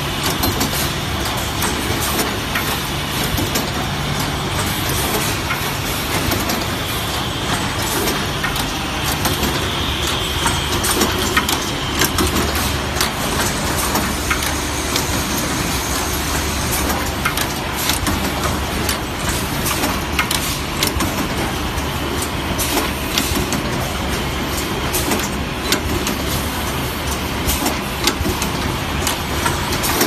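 Semi-automatic French power plug riveting machine (WL-880) running: many sharp clicks and clacks from its pneumatic cylinders and tooling over a steady machine din.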